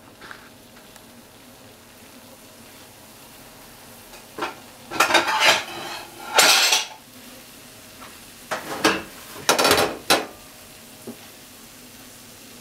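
Chopsticks stirring and knocking against a frying pan of mushrooms and green onion, in several bursts of clatter between about four and ten seconds in, over a faint steady sizzle.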